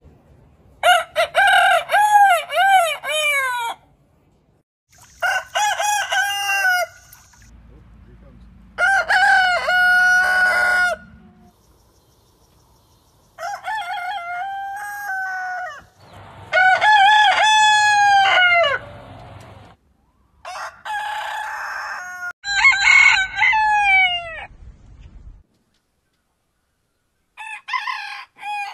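Roosters crowing: about seven separate crows from different birds, one after another with short silent gaps. Each crow is a long call that rises and falls in pitch.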